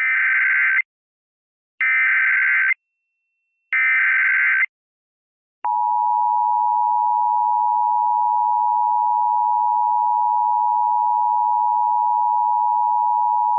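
Emergency Alert System SAME header: three short screeching data bursts about a second apart, then the two-tone EAS attention signal (853 and 960 Hz) held steadily for about eight seconds. Together they signal the start of an emergency alert, here a local area emergency.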